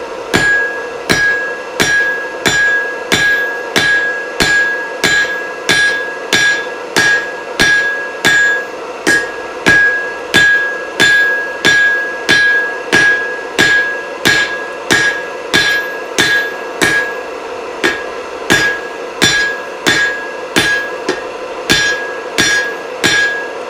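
Rounding hammer striking hot steel on an anvil at a steady, even pace, about one and a half to two blows a second, each blow leaving a clear ring. These are the strong blows used to spread the steel into a chisel's working end, with a short pause in the rhythm twice near the end. A steady hum runs underneath.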